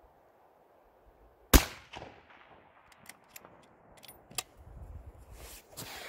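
A single rifle shot about one and a half seconds in, a sharp crack that echoes briefly off the surroundings. A few light clicks follow a couple of seconds later.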